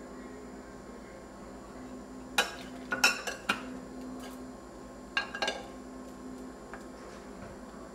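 Petri dish and its lid clinking against each other and the bench: a quick run of sharp clinks about two and a half seconds in, then a few more about five seconds in as the lid is put back on.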